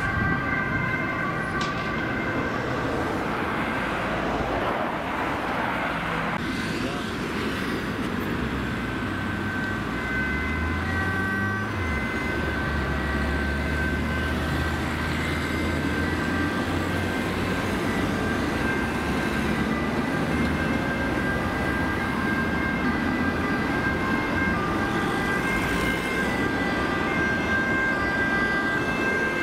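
Ambulance sirens sounding steadily over road traffic as ambulances drive on an emergency run. About ten seconds in, a vehicle engine rumbles past with a rising pitch.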